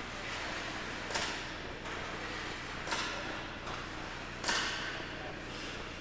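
Three sharp knocks, about a second and a half apart, the last the loudest, over a steady background noise.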